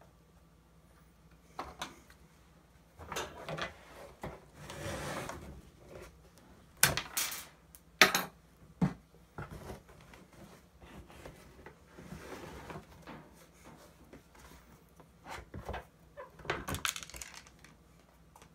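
Intermittent clicks, knocks and rustling of a speaker and its small mounting hardware being handled while a washer and nut are fitted onto a screw. Two sharp knocks, about seven and eight seconds in, are the loudest.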